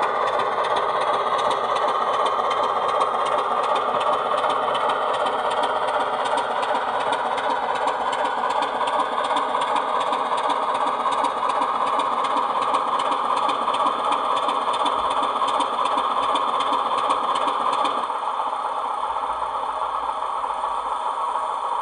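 A DCC sound decoder plays a BR Class 24 diesel engine through the model locomotive's small speaker as the model runs along slowly and comes to a stand. The engine sound settles quieter about eighteen seconds in.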